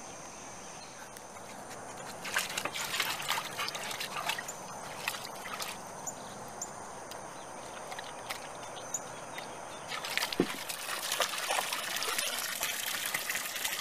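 Water sloshing and splashing in a plastic kiddie pool as a dog steps and paws around in it, with a garden hose trickling water in. The splashing starts about two seconds in and gets busier near the end.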